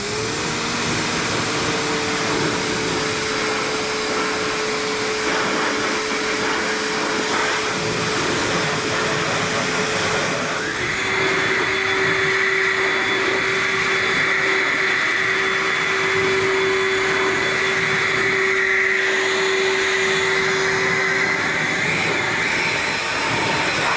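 EGO 56-volt battery-powered pressure washer spraying: its electric motor pump spins up and runs with a steady hum under the loud hiss of the water jet from the nozzle. About 11 seconds in, the hum drops a little in pitch and a higher whine joins the spray, as under a change of load.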